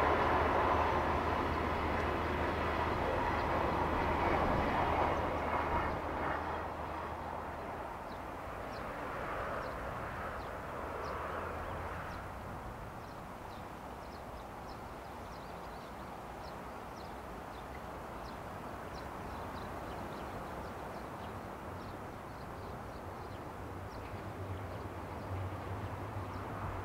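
A train running past and fading into the distance, its low steady hum dying away over the first several seconds, leaving a quiet background.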